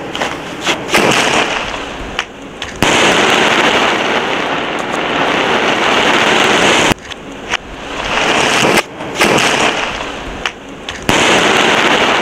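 Sky-shot aerial firework bursting overhead: sharp cracks and pops at first, then long stretches of dense crackling as a shower of stars burns. A few single bangs break into the crackling partway through.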